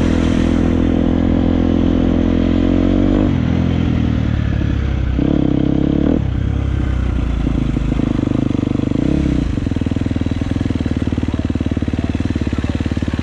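Dirt bike engine running loud and close, its revs shifting up and down several times, with a brief rise about five seconds in.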